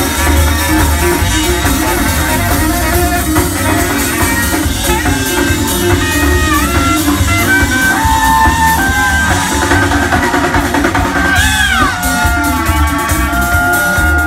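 Live band playing a song loudly: drum kit, bass guitar and saxophone over a heavy low end, with held, gliding melody notes from about five seconds in.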